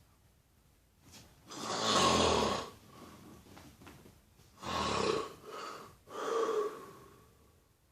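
Loud snoring: one long snoring breath about a second and a half in, then a run of shorter snores close together past the middle.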